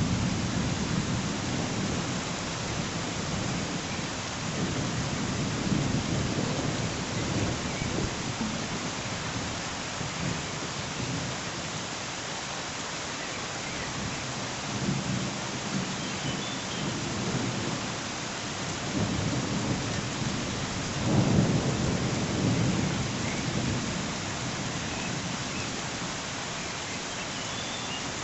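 Thunderstorm: heavy rain falling steadily, with thunder rumbling low several times; the loudest rumble comes a little past two-thirds through.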